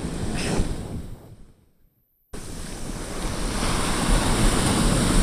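Ocean surf breaking and washing up the beach, with wind buffeting the microphone. The sound fades out to silence about two seconds in, then the surf wash comes back louder.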